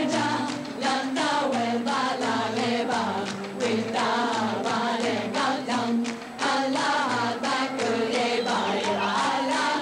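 A stage pop song performed live: a woman singing lead into a microphone with a choir of voices, over a band with a steady beat.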